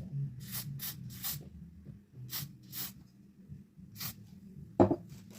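Short bursts of got2b Glued aerosol hairspray: about six brief hisses, spaced irregularly, followed by a single loud knock near the end.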